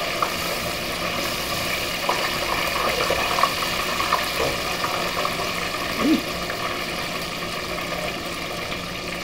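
Hot oil bubbling and sizzling steadily around battered cod in an electric deep fryer, with a few light clicks along the way.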